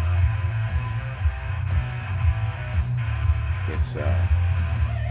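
Guitar-led music with a heavy, steady low end.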